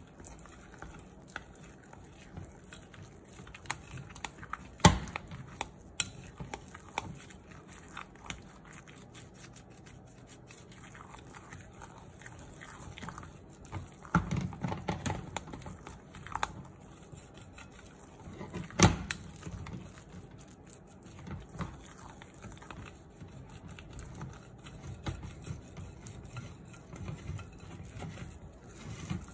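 Silicone spatula stirring thick pancake batter in a glass bowl: soft, wet squelching and scraping, with a few sharp knocks against the glass, the loudest about five seconds in and again near nineteen seconds.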